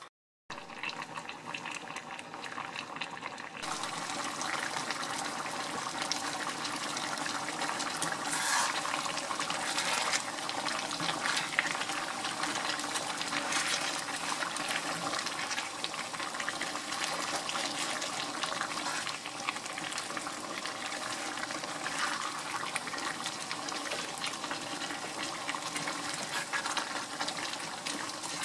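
Chicken stew in tomato sauce simmering in a pan, bubbling and crackling, while a wooden spatula stirs it, scraping and sloshing through the thick sauce. The sound starts after a brief gap and grows a little louder about four seconds in.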